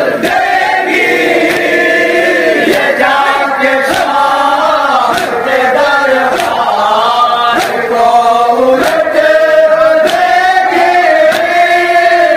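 Group of men chanting an Urdu noha (mourning lament) in unison through a PA system, voices holding long notes. Sharp strikes come about once a second underneath, from chest-beating (matam) in time with the lament.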